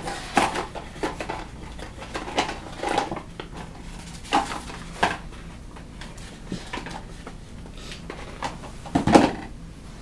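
Scattered light clicks and knocks at irregular intervals, with a louder thump about nine seconds in.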